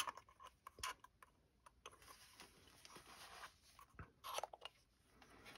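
Near silence with faint handling noises: small clicks and rubs as hands turn and feel a spotting-scope mount and its front cover, with a brief rustle about four seconds in.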